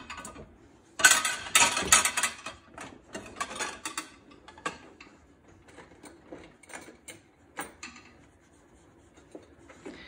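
A dog licking plates in a dishwasher's lower rack, with the plates and wire rack clicking and rattling. The clicks come in quick dense runs in the first few seconds, then grow sparse and stop.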